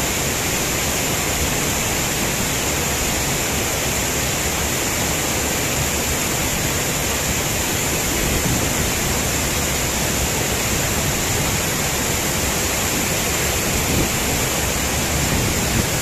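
Rushing stream tumbling over boulders below a waterfall: a steady, even rush of white water.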